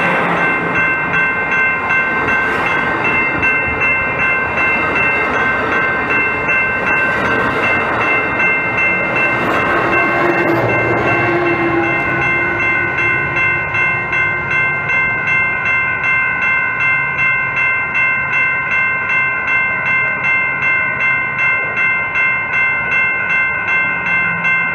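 Amtrak bi-level passenger cars rolling past on the rails, their noise fading after about ten seconds. Throughout, a railroad crossing warning bell rings steadily at about two strokes a second.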